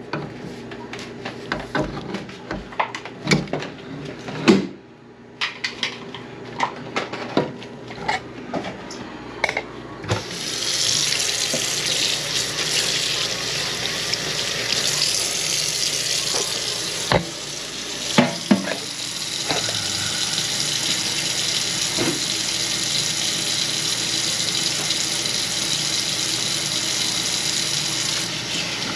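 A run of knocks and clatter for about ten seconds, then a kitchen sink faucet is turned on and water runs steadily into the sink, with a few more knocks along the way.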